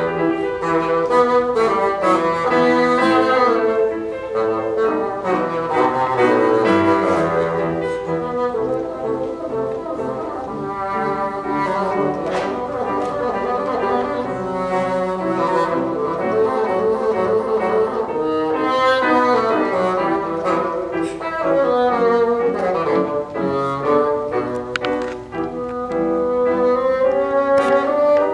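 Bassoon playing a classical concerto movement with Steinway grand piano accompaniment. The line is full of quick, running notes throughout.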